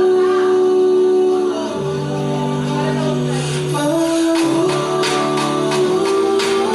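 K-pop song playing, with held sung notes over a backing track; about halfway through, a steady percussive beat comes in.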